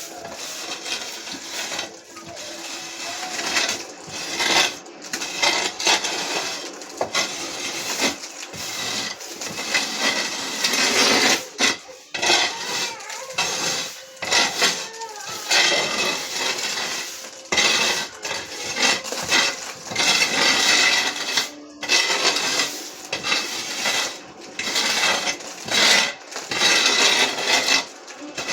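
Irregular clattering and scraping of metal, coming in bursts of a second or two with short gaps between.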